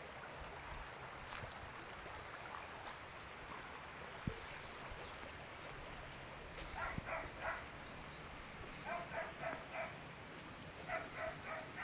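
A dog barking faintly in quick runs of three or four barks, three times in the second half, over a steady outdoor hiss.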